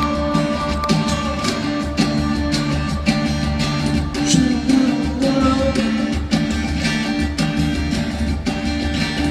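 Live band music in an instrumental passage of a Latin Christian pop ballad: guitar over a steady, evenly pulsing bass beat with drums.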